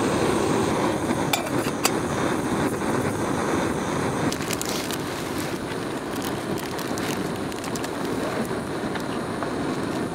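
Steady roar of a backpacking gas stove burning under a cook pot, with a few sharp clicks and crinkles, the loudest cluster just before the middle.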